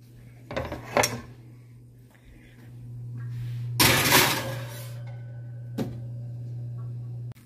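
A glass baking dish clinks, then slides across a wire oven rack for about a second, beginning about four seconds in. Sharp knocks come about half a second and one second in, and another near six seconds. A steady low hum runs underneath.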